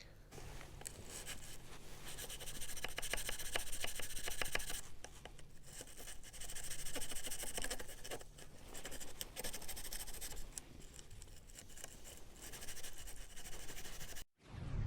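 A small bristle brush scrubbing between the fins of a car heater blower-fan impeller, to clean off caked dust that throws the fan out of balance and makes it whistle. It is a scratchy rubbing full of rapid fine clicks as the bristles flick over the vanes, in several bouts with short pauses. It breaks off abruptly near the end.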